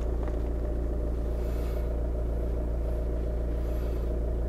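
Skoda Octavia's engine idling steadily, a constant low hum heard from inside the cabin.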